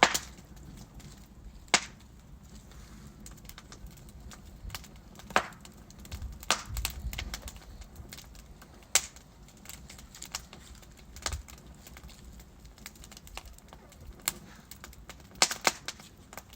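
Wood fire burning in a fireplace: a low steady rumble of flames with sharp, irregular crackles and pops from the burning logs, a few louder snaps among them, including a quick cluster near the end.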